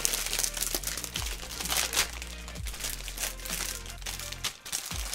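Plastic shrink wrap crinkling and tearing as it is pulled off a trading card collector's binder, in irregular crackly bursts with a brief lull near the end.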